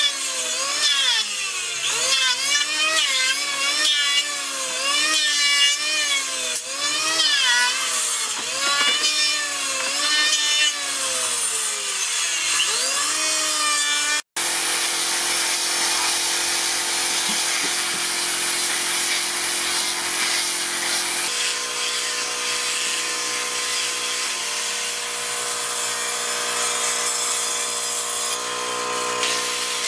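Handheld electric planer shaving the wooden frame, its motor whine dipping and recovering again and again as the blades bite into the wood. After a sudden break about 14 s in, a power tool runs with a steady whine.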